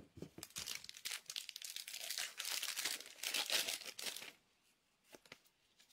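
Hockey card pack wrapper being torn open and crinkled: a run of crackling, rustling tears for about four seconds, then a couple of light clicks.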